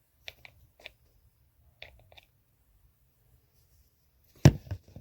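Light plastic clicks of a pump-dispenser bottle of micellar cleansing water being pressed while it is not yet primed, then a loud thump near the end.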